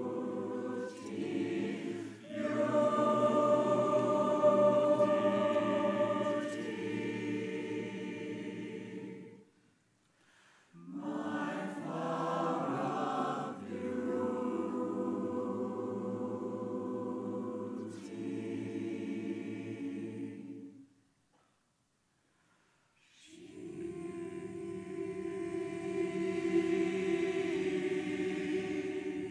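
Large mixed choir singing a slow piece in long held phrases. The singing breaks off into brief silence twice, about ten seconds in and again just after twenty seconds.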